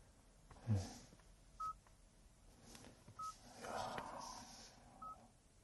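Three short, high electronic beeps from the Hyundai Tucson Hybrid's dashboard controls, one for each press of the camera view button, spaced a couple of seconds apart.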